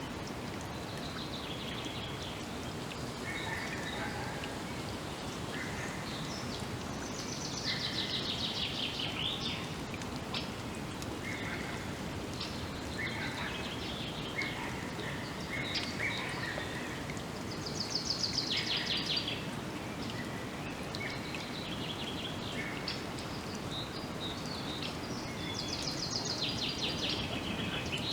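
Several birds singing and calling in a forest, with short notes scattered throughout. One bird repeats a fast, falling trill three times, each lasting about two seconds, over a steady background hiss.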